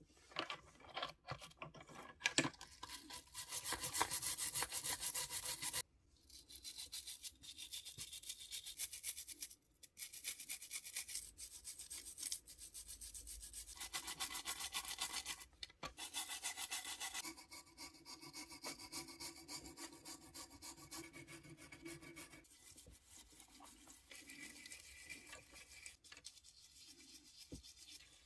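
Abrasive back-and-forth rubbing on a small model car part, fast repeated strokes in several stretches that break off suddenly at edits.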